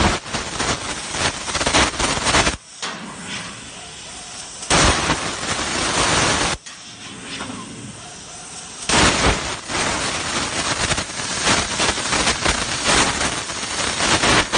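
CNC plasma cutter's torch cutting steel plate: a loud, harsh hiss with rapid crackle from the arc. The arc breaks off twice for about two seconds each, about two and a half seconds in and again near the middle, before cutting resumes.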